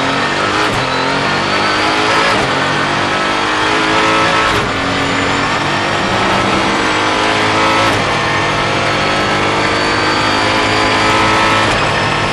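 Mosler Super GT race car's V8 heard from inside the cockpit under full acceleration. The engine note climbs through each gear and drops back at each upshift, several times, as the car gathers speed.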